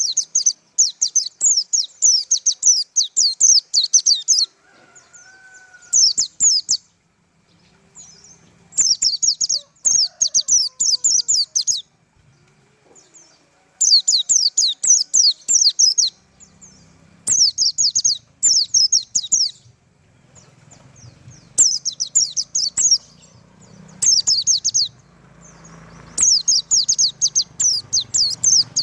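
White-eye (pleci) singing its fast 'tembakan' song: rapid runs of high, downward-sweeping notes in bursts of one to three seconds, with short pauses between them. A low rumble builds up near the end.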